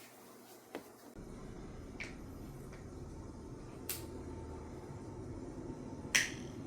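A steady low machine hum switches on about a second in and runs on, with a few light clicks and knocks over it.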